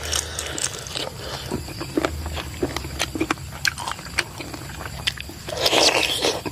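A person eating chicken feet close to the microphone: wet chewing and smacking with many small clicks, and a longer, louder sucking slurp near the end as he sucks meat off a foot.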